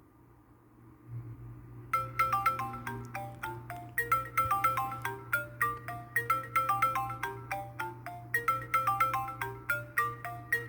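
iPhone 6s ringtone playing through the phone's speaker: a quick melody of short, quickly fading pitched notes that starts about two seconds in. A low steady hum comes in about a second in, just before the tune.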